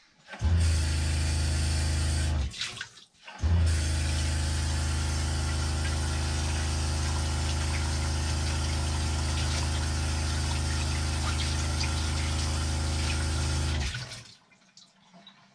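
Water running from a faucet into a sink with the steady hum of the van's water pump under it. It runs for about two seconds, stops briefly, then runs again for about ten seconds and cuts off.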